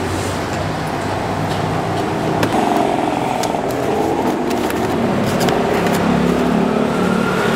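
Street traffic: engines of passing motor vehicles running, with a few light clicks.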